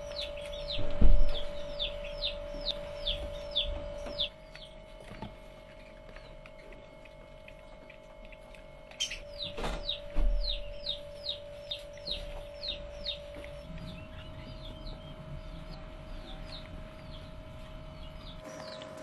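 Baby hedgehogs piping: runs of short, high, falling squeaks, about three a second, fading towards the end. Under them runs a steady hum, and two dull thumps stand out, about a second in and about ten seconds in.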